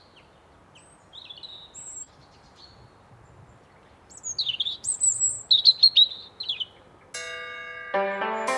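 Wild birds chirping and trilling in short high calls, busiest about four to six seconds in, over a faint steady hiss. Near the end, music with held plucked-string notes comes in.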